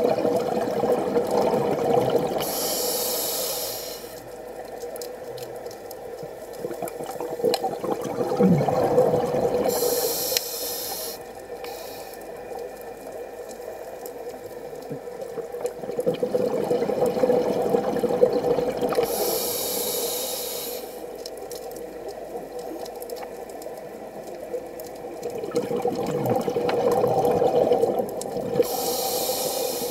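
Scuba diver breathing through a regulator underwater: slow breaths about every nine seconds, each a rumbling burst of exhaled bubbles followed by a short hiss of air drawn through the regulator, about four breaths in all.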